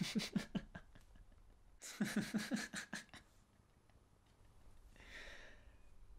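A man laughing in two short bouts of quick, pulsed chuckles, the second about two seconds in, followed by a soft breath out about five seconds in.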